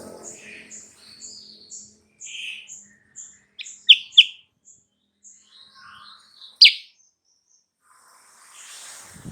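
Kutilang sutra birdsong: a run of short, high chirps, with two loud, sharp calls about four seconds in and another shortly before seven seconds.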